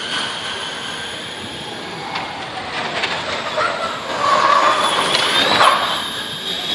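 First-generation Spark-Renault SRT_01E Formula E cars passing on track, their electric drivetrains giving a high, tram-like whine over tyre and road noise. The whine swells and rises in pitch about four seconds in, loudest just before the end.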